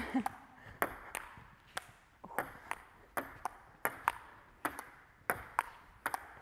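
Table tennis rally: the ball clicking in turn on the table top and the rubber-covered paddles, a steady run of sharp pocks roughly every half second, each with a short echo.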